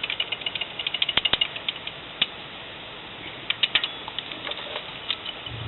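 Hand ratchet wrench clicking in quick runs while loosening fasteners on an engine, a long burst at the start and another past the halfway point.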